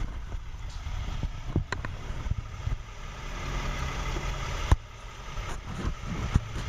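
Front-end loader's diesel engine running steadily at low revs while it is loaded onto a trailer, with a few sharp knocks, the loudest about four and a half seconds in.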